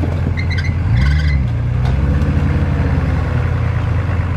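Nissan Patrol off-road truck's engine running at low revs as it crawls over rough trail, rising briefly in revs about a second in and then holding steady.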